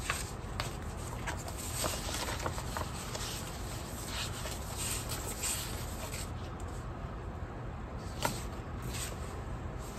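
Paper sticker sheets rustling and sliding on a tabletop as they are handled and shuffled, with a few light taps scattered through, over a steady low hum.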